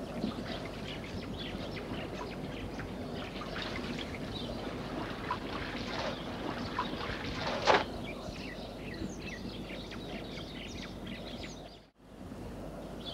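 Outdoor waterside ambience: water splashing and trickling, with small birds chirping throughout and one louder splash about eight seconds in. The sound cuts out briefly near the end.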